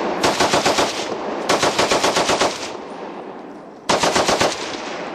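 Machine gun firing on full automatic in three rapid bursts: the first runs in for about a second, the second is longer, and a short third comes near the end. Each burst trails off in an echo.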